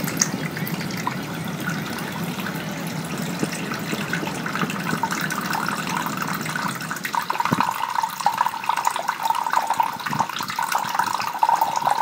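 Running water splashing and trickling steadily; about seven seconds in it turns brighter and higher.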